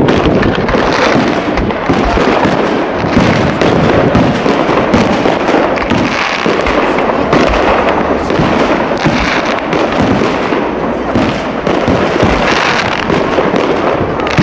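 New Year's fireworks display: rockets bursting one after another in a dense, unbroken barrage of bangs and crackling.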